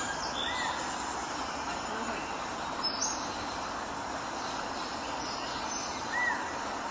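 Steady background noise of ambience, with a couple of faint short chirps.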